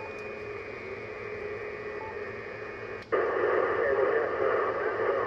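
Receiver static hiss from the Yaesu FT-710 HF transceiver's speaker, with a few faint steady tones. About three seconds in there is a click as the radio changes from the 17-metre to the 20-metre band, and much louder band noise follows, noise the operator puts down to solar activity.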